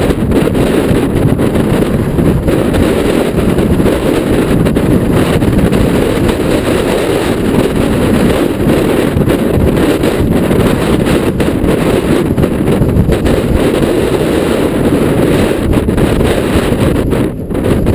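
Strong wind buffeting the microphone of a mountain bike rider's camera, a loud steady low rush with brief dips.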